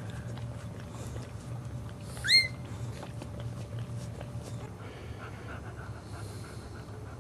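Newborn Boxer puppy giving one short, high squeak that rises in pitch, about two and a half seconds in, over a steady low hum.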